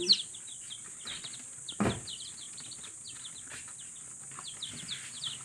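Newly hatched chicks peeping: many short, high cheeps that slide down in pitch and overlap one another. A single thump sounds about two seconds in.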